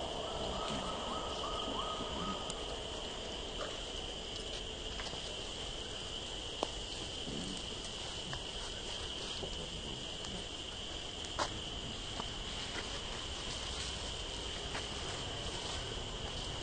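Steady high-pitched drone of forest insects such as crickets, with a couple of sharp clicks about six and eleven seconds in.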